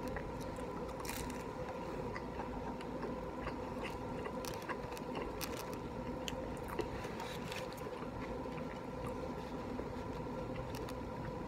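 Quiet chewing of a McDonald's chicken nugget, with small scattered wet mouth clicks throughout, over a steady faint hum.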